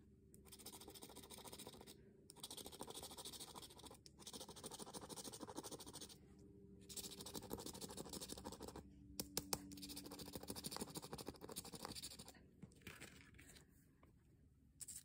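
Scratch-off lottery ticket being scratched, its coating rasped off in bursts of quick scraping strokes. There are short pauses about 2, 4 and 6.5 seconds in and a few sharp clicks about 9 seconds in, and the scratching stops about 12 seconds in.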